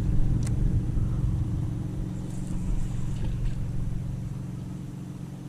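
Boat engine running at a steady low pitch, slowly fading toward the end.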